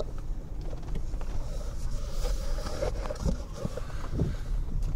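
Low, steady rumble inside a Lexus LS 430's cabin while driving: tyre and engine noise.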